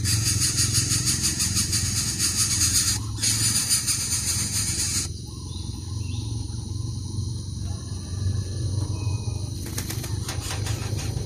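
Outdoor nature ambience. A loud, dense high buzzing hiss breaks off briefly and then cuts out sharply about five seconds in, leaving a quieter background with a few faint high calls and light rustling clicks, over a steady low rumble.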